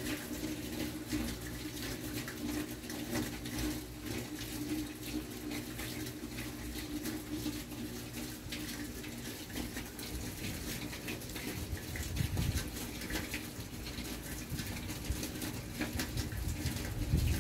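Steady heavy rain falling in a thunderstorm, a dense patter of drops, with a low rumble swelling about twelve seconds in and again near the end.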